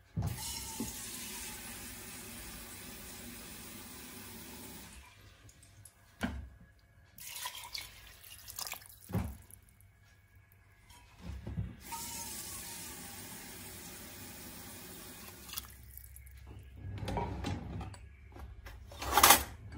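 Water pouring into a stainless steel pressure cooker over wheat, chickpeas, onion and chicken, in several stretches with short breaks and a few knocks between them.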